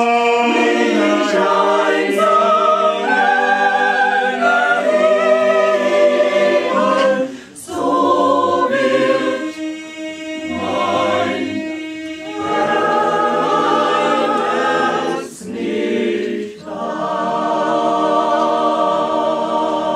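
Mixed choir of men's and women's voices singing unaccompanied in chords, phrase by phrase with short breaks between, closing on a long held chord near the end.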